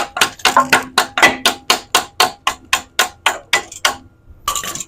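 Hammer tapping rapidly on a seized lower-arm bolt, about five sharp metallic taps a second with a ringing tone, to work the bolt out. The tapping stops about four seconds in, followed by a brief scrape.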